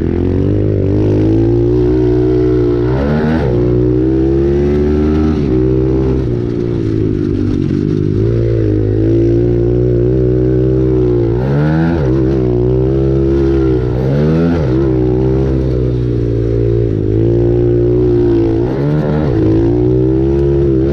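Pit bike engine heard from on the bike, revving hard while racing over a dirt track. Its pitch climbs and drops back every few seconds as the bike accelerates and slows, with dips about three, six, twelve and fifteen seconds in.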